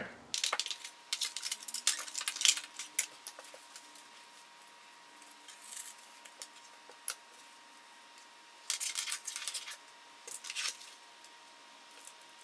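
Laser-cut wooden panels of a small box being pulled apart and handled on a tabletop: a flurry of light wooden clicks and knocks, a few scattered taps, then another flurry near the end.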